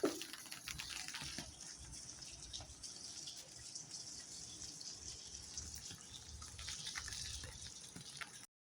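Water dripping and trickling, with scattered small drip ticks over a steady soft wash; it cuts off suddenly near the end.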